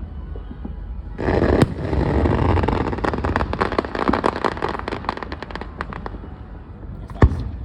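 Fireworks going off: a hiss starts about a second in with a sharp bang, then a few seconds of rapid crackling, and another sharp bang near the end.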